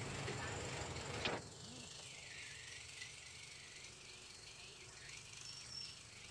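Faint street ambience: a steady low traffic hum under a light hiss, with one brief click about a second in.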